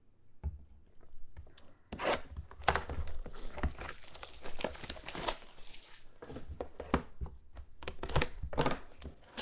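Plastic shrink-wrap being torn and crinkled off a sealed trading-card box: a few small clicks, then from about two seconds in a dense run of sharp crackles.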